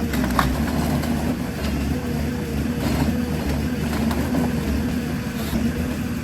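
Heavy machine's engine running steadily at an even pitch, with a few short knocks and clicks over it.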